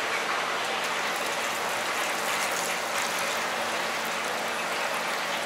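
Clear duck stock poured from a steel pan into a pot of chopped roast duck and ginger, a steady splashing and bubbling of liquid.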